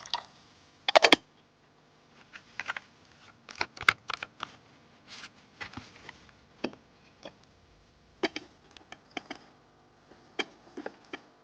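Irregular sharp clicks and light knocks, a few at a time with quiet gaps between, the loudest cluster about a second in.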